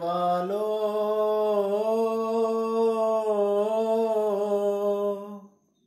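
A man singing a noha (Shia lament) unaccompanied, holding one long, gently wavering note on a single vowel for about five seconds before it fades out.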